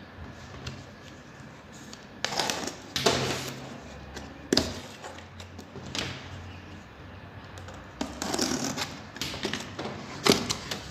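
Cardboard box being handled and its flaps pulled open: irregular bursts of scraping and rustling cardboard with a few clicks and taps.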